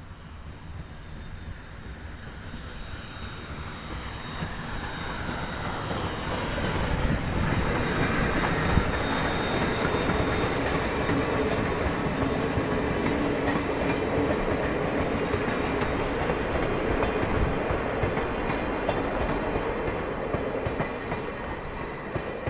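Steam locomotive C58 363 and its train of vintage passenger coaches rolling past. The sound grows louder over the first several seconds as the train nears, holds steady while the coaches pass, and eases off slightly near the end.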